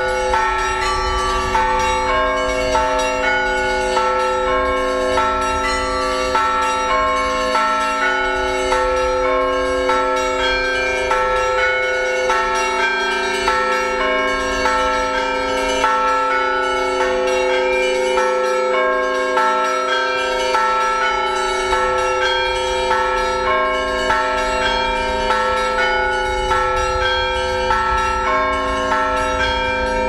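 Russian Orthodox church bells rung by one ringer pulling the clapper ropes. Several bells of different pitches are struck in a quick, repeating pattern, and their tones ring on and overlap without a break.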